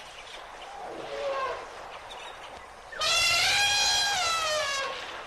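Elephant trumpeting: a faint high call early on, then one loud high call about three seconds in that rises and then falls in pitch over about two seconds.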